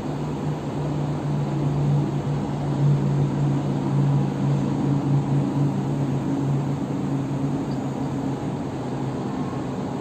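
Distant night-time city traffic as a steady rushing hum, with a vehicle's engine drone swelling from about a second in and fading away after about seven seconds.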